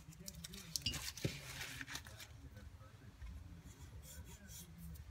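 Light rubbing and scraping with a few sharp clicks, most of them about a second in, over a low steady hum.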